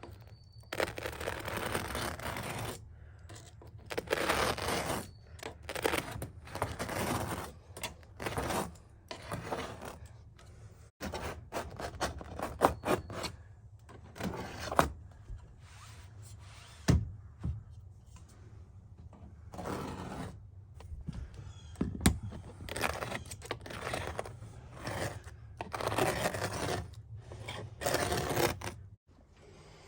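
Irregular scraping and rubbing, with a few sharp thumps, from hands-on renovation work inside the RV.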